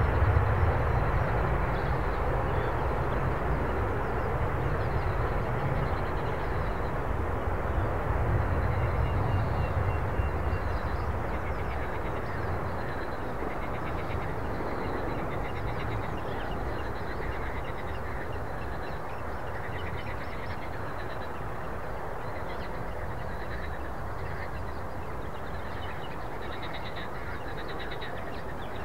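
Engine noise of a passing aircraft slowly fading away, leaving a steady rumble. From about a third of the way in, short repeated croaking calls of frogs rise above it.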